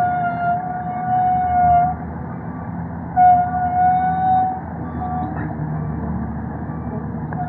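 Hyundai 220 excavator engine running with a low rumble, under a steady high whine that holds for about two seconds at the start, stops, and returns for over a second about three seconds in.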